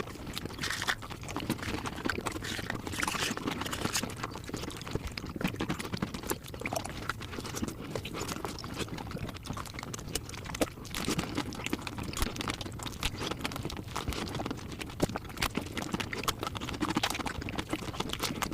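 Mukbang eating sounds, close-up chewing sped up to five times normal speed, heard as a dense, unbroken run of rapid clicks and smacks.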